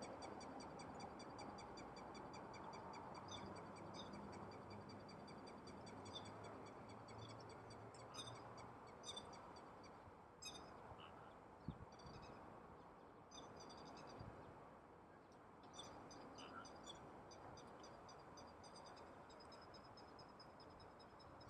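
Frogs calling in a flooded rice paddy: faint, rapid pulsed croaking trains that overlap and repeat throughout, with a few short bird chirps in the middle.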